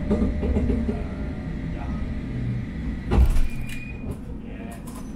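Prague tram running on its rails: a steady low rumble and rattle, with one loud knock about three seconds in, after which the running noise is quieter.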